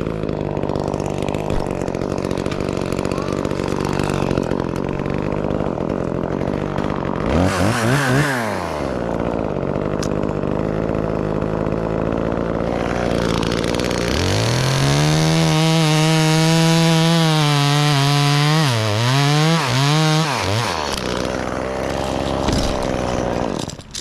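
Two-stroke chainsaw running at idle, revved briefly about eight seconds in. About fourteen seconds in it is held at high revs for some six seconds, dipping twice, then drops back toward idle.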